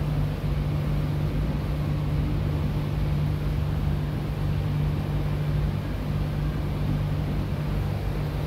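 A steady, unbroken low machine hum over a constant low rumble.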